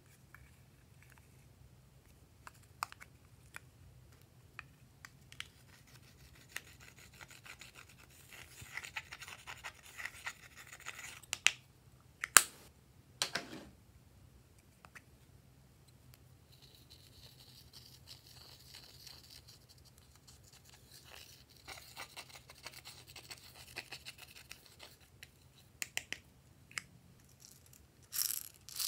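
Small plastic pots of pink glitter powder being handled and opened, with scattered plastic clicks and scrapes, and a soft hiss as the glitter is shaken out onto the slime. Two sharp clicks come about midway.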